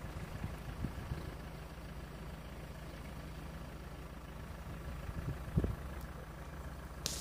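A motor engine idling steadily, a low even hum. A soft thump comes about five and a half seconds in.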